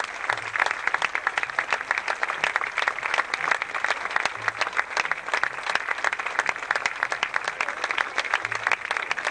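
Audience applauding: a crowd clapping steadily, with many overlapping hand claps.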